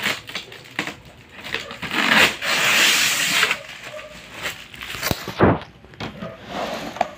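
Clear plastic wrapping and cardboard packaging rustling and scraping as a split-type air conditioner's indoor unit, with its metal mounting plate attached, is handled in its box. Irregular clicks and scrapes, with a longer, louder rustle about two seconds in.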